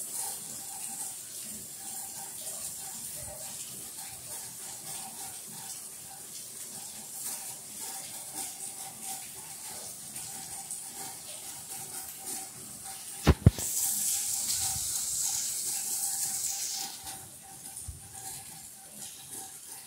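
Rain falling steadily, a soft even hiss. About two-thirds of the way in come two sharp knocks close together, followed by a few seconds of louder hiss.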